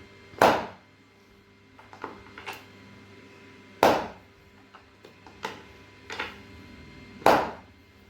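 Three loud, sharp thumps, about three and a half seconds apart, with softer knocks and taps between them.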